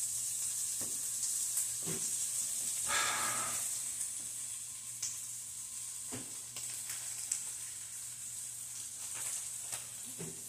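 Strips of carne asada steak frying in a nonstick skillet: a steady sizzle with a few small pops.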